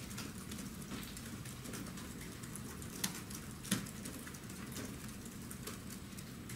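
Quiet room tone with a faint, irregular patter of small clicks, with two sharper clicks about three and three and a half seconds in.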